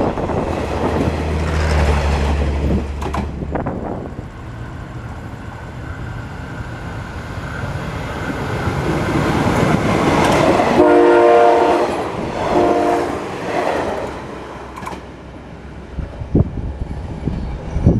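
State Railway of Thailand diesel train running with a low engine rumble, then its horn sounds twice about eleven seconds in: a longer blast and a short one, several notes sounding together.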